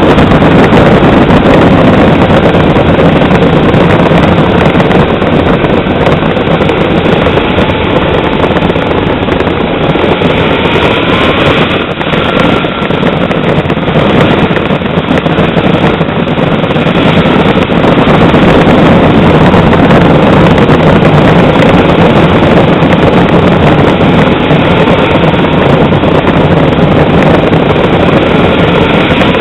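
Radio-controlled model Tornado jet's engine whining, its pitch wandering and rising twice, under a loud steady rush of wind on the microphone.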